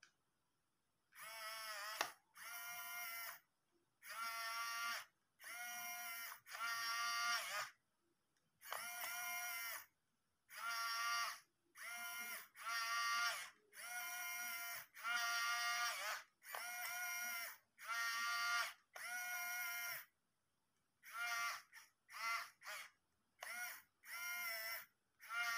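Small geared DC motor with a metal gearbox whining in repeated on-off bursts, most about a second long, as it drives the toy tractor's plastic steering rack back and forth. The bursts come shorter and quicker near the end.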